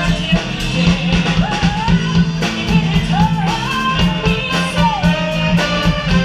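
Live band playing a blues-rock number with singing, drums, electric guitar and saxophone, over a steady drum beat.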